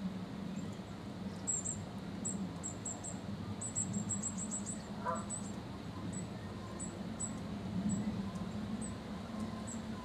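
Small songbirds giving high, thin squeaky calls: a quick run of short notes from about one and a half to five seconds in, then scattered single notes, over a steady low hum.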